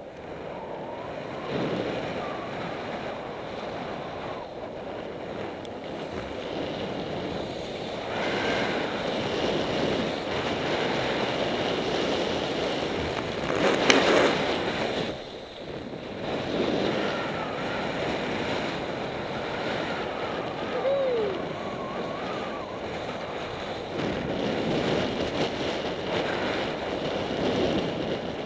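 Skis sliding and scraping over packed snow while the skier moves downhill, with wind buffeting the camera microphone; the noise swells and fades with the turns. About halfway through there is one brief, sharp, louder knock or scrape.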